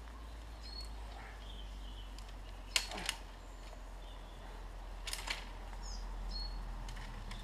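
Small birds chirping in short, high calls, with two pairs of sharp clicks, the loudest about three seconds in, over a steady low rumble.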